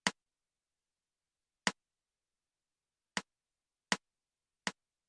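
Count-in clicks from the notation program's percussion playback, at quarter note = 80. Three sharp clicks come about a second and a half apart, then two more at twice the pace.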